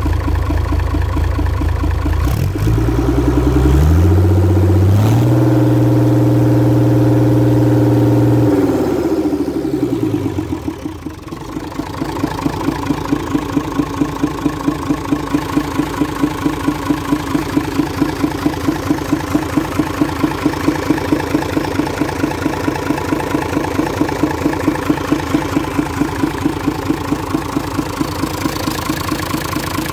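Perkins 6.372 six-cylinder diesel engine on a test run, revved up a few seconds in, held at high revs for several seconds, then let fall back to a steady idle with an even beat. It runs through a short open exhaust stack.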